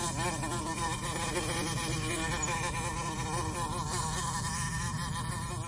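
Wasp buzzing: a continuous insect drone whose pitch wavers up and down.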